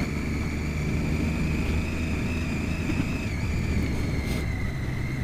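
2013 Triumph Daytona 675R's inline-three engine running at a steady, low, even note while the bike is ridden, heard from a helmet-mounted camera, with a thin steady high whine above it.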